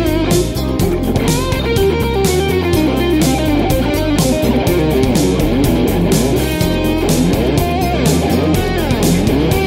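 Peavey electric guitar playing a fast lead solo with note bends, slides and vibrato, over a backing track of drums and bass.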